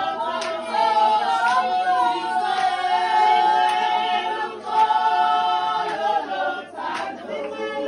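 A group of women singing together a cappella, holding long notes, with sharp claps about once a second.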